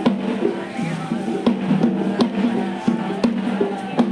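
Music with drums: sharp drum strikes about every half second over sustained pitched tones.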